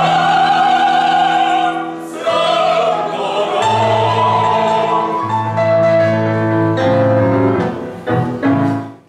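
Mixed choir of men and women singing a song in long held notes, with piano accompaniment. The music fades out quickly at the very end.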